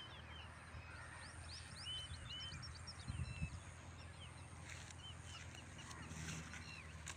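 Many small birds chirping in quick short notes, faint, over a steady low hum.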